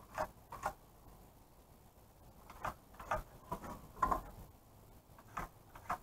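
Pencil and speed square marking stud layout on pine wall plates: several short, faint scratches and light knocks, spaced unevenly.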